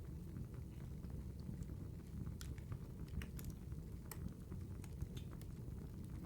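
Campfire crackling: a steady low rumble with scattered, irregular sharp snaps and pops.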